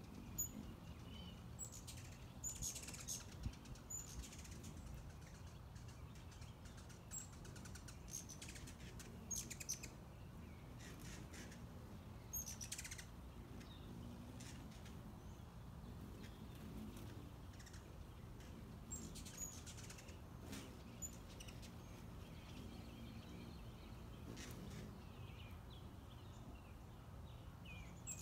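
Faint, scattered short chirps and calls of small backyard birds, coming every second or two, over a steady low hum.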